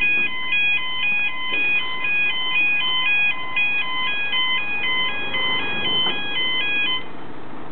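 Railway level crossing warning alarm sounding as the barriers lower for an approaching train: an electronic two-tone alarm switching between two high pitches about twice a second. It cuts off about seven seconds in.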